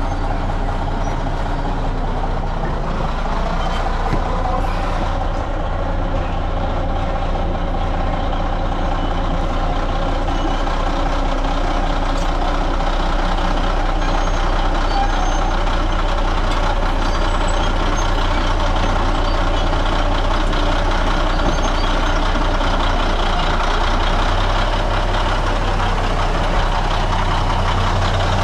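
Caterpillar D9 bulldozer's diesel engine running under load as the machine moves up. Engine speed rises about three seconds in and drops back near the end.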